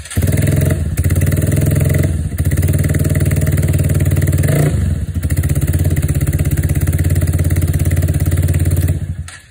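Hero XPulse 4V's single-cylinder engine running through an aftermarket replica exhaust. It catches right at the start, idles steadily with a brief rev about halfway through, and is switched off near the end.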